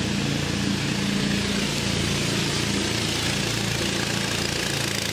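Engines of narrow wooden river motorboats running steadily as the boats come toward the listener, with the hiss of water along the hulls.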